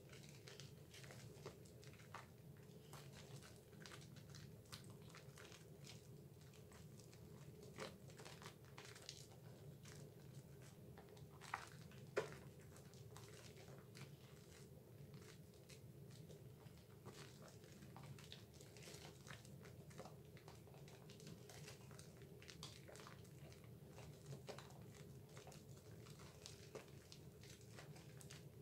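Faint wet squishing and crackling of thick soap lather as hands rub Dove bar soap together, over a steady low hum. Two sharper clicks come about halfway through.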